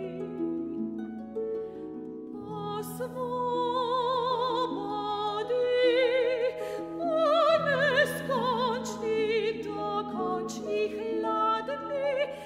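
A classical soprano sings with wide vibrato over a pedal-harp accompaniment of plucked, ringing notes. The harp plays alone for a moment early on, and the voice comes back in about three seconds in.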